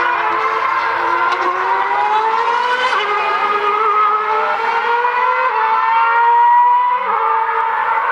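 2013 McLaren Formula One car's Mercedes 2.4-litre V8 running through a slow corner, its engine note climbing slowly in pitch and dropping back about seven seconds in.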